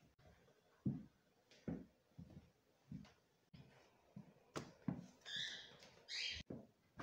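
Footsteps on a wooden floor, a few short dull knocks about two-thirds of a second apart. Near the end come brief scrapes and rustles as a wallet is picked up off a painted wooden dresser.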